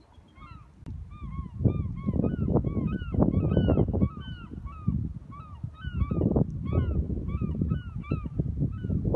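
A flock of birds calling over and over, many short arching calls overlapping one another. Underneath is a low rumble that swells and fades, loudest from about two to four seconds in.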